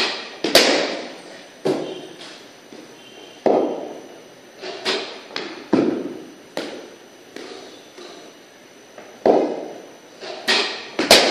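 Cricket ball in a practice net: the ball pitching and being struck by the bat, a series of sharp knocks about one to two seconds apart, often in pairs, each followed by a short echo.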